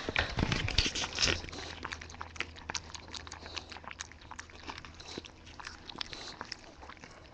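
Bulldogge puppy lapping water from a plastic bowl: a steady run of small wet clicks and slurps, several a second. A few louder knocks come in the first second or so.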